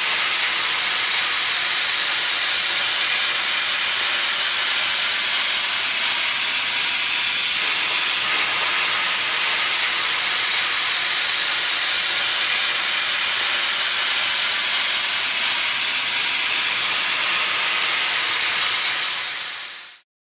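Steady hiss of steam jetting from the nozzle of a Vapamore MR-1000 Forza commercial steam cleaner, the steam reaching about 140 °C at the tip. It fades out near the end.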